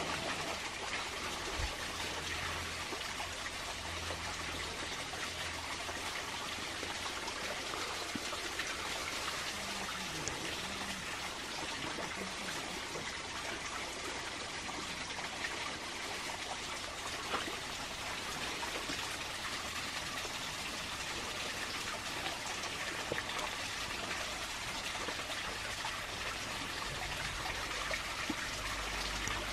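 Steady trickle of running water, with no breaks or changes.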